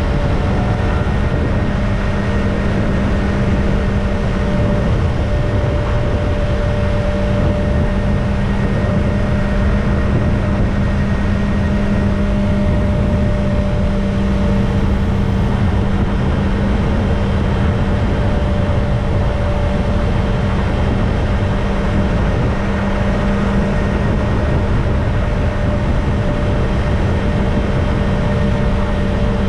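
Kawasaki ZX-25R's inline-four engine with its stock exhaust running at a steady speed, a constant engine note with no revving, under heavy wind and road noise.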